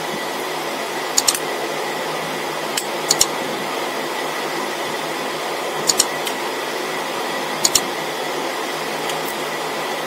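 Short sharp plastic clicks, four times and mostly in quick pairs, as a feature phone's housing is pried apart with an opener tool and its locking clips let go, over a steady fan-like hiss.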